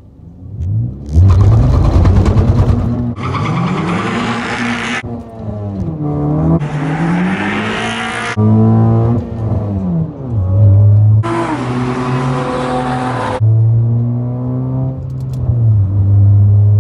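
Honda Civic Si's 2.4 VTEC four-cylinder launched at full throttle on a drag strip. About a second in there is a harsh, loud juddering of violent bouncing off the line: wheel hop on a heavily prepped, grippy lane. The engine then climbs in pitch and drops back at each of several upshifts.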